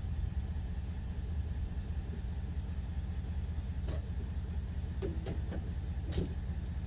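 Detroit Diesel Series 60 12.7-litre inline-six diesel idling steadily with a low rumble after a cold start, its first run in nearly three years. A few short clicks come in the second half.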